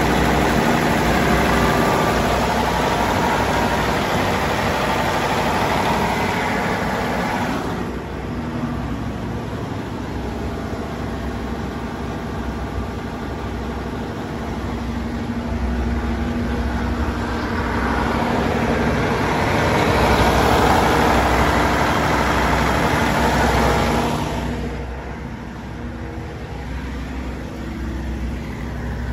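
Perkins 2306 six-cylinder turbocharged diesel engine of an F.G. Wilson P400E1 generator set running at a steady speed. It is louder for the first eight seconds and again around twenty seconds in, quieter in between and near the end.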